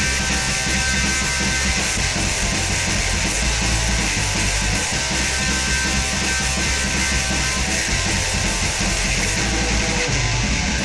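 Rock band's raw studio recording of a punk-leaning song: electric guitar and band playing loud and dense, with no singing.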